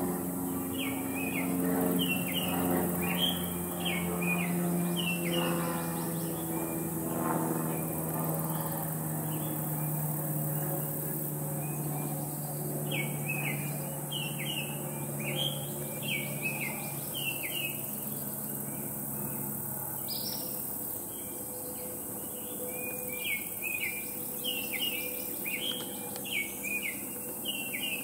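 Northern cardinal singing: three bouts of quickly repeated, down-slurred whistled notes. Soft background music with sustained low tones plays underneath and fades out about two-thirds of the way through.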